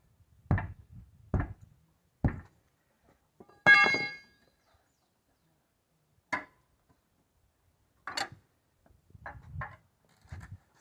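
Hand tools knocking against a large tractor tyre and its steel rim while the tyre is being mounted: three knocks about a second apart, then one loud ringing metal clang, then a few more scattered knocks.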